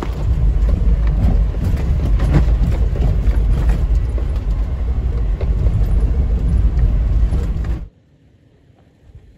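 2018 Toyota 4Runner TRD Off-Road driving slowly over a rocky dirt trail: a loud, steady low rumble of the vehicle with scattered knocks and crackles from the tyres on rock. It cuts off abruptly near the end, leaving only faint outdoor background.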